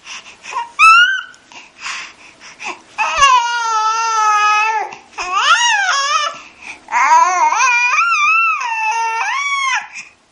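Baby fussing and whining in drawn-out, wavering cries, calling out to be picked up. There are short sounds first, then three long cries starting about three, five and seven seconds in.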